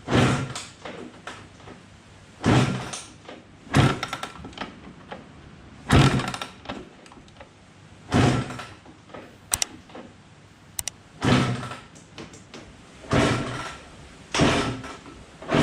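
Suzuki RM125 two-stroke dirt bike being kicked over about nine times in a row, each kick a short, loud stroke of the kickstart turning the engine over without it firing. The fuel tap was left off, so no fuel reaches the carburettor.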